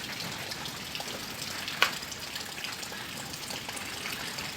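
Rain falling steadily, a dense hiss with scattered drip ticks. One sharp click a little under two seconds in.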